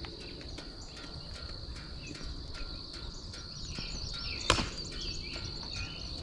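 Insects trilling steadily in one high, unbroken tone, with a single sharp click about four and a half seconds in.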